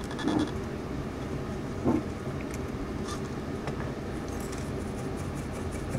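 Steady low background hum, with two soft knocks, about a third of a second and two seconds in, and a few faint light clicks later, as of tools being handled on a bench.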